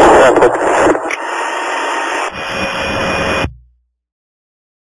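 Police two-way radio transmission with no clear words: a hiss of static, loudest in the first second, that cuts off abruptly about three and a half seconds in.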